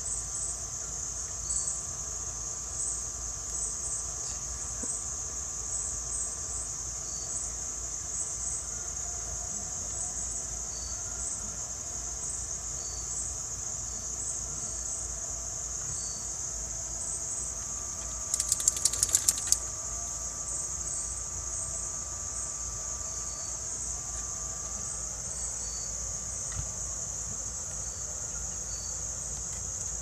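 Evening chorus of crickets and other insects, a steady high-pitched trill with small repeating pulses, broken about two-thirds of the way through by a quick run of sharp clicks.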